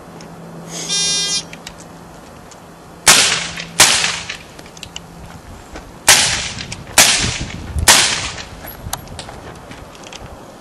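Electronic shot-timer start beep about a second in, then five suppressed gunshots through an AAC Cyclone silencer. Two shots come close together about three seconds in, and three more about a second apart a few seconds later, each a sharp crack with a short fade.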